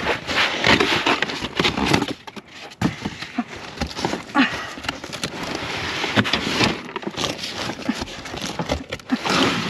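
Cardboard boxes rustling, scraping and knocking against each other as they are shifted and rummaged through by hand, in irregular bursts with sharp knocks.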